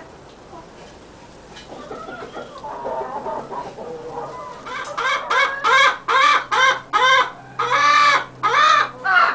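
White-faced Black Spanish hen on the nest, murmuring softly at first and then, from about five seconds in, cackling loudly in a quick run of repeated calls, with one longer drawn-out call near the end. This is the laying cackle of a hen at the nest.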